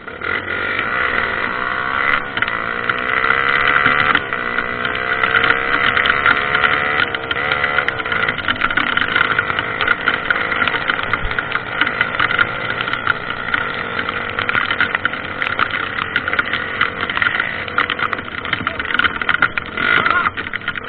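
Dirt bike engine running, its revs rising and falling over the first several seconds, then holding steadier.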